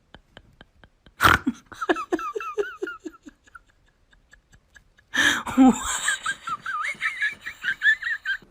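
A person laughing hard in two bouts. The first follows a sudden thump about a second in; the second, longer and higher-pitched, starts about five seconds in.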